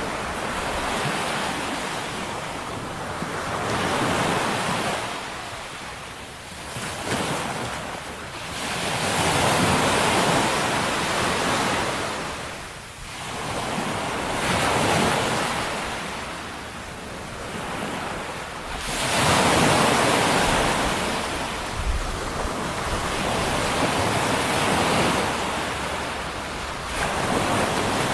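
Water surging and washing back in slow swells every few seconds, like waves breaking and running up a shore, with wind buffeting the microphone.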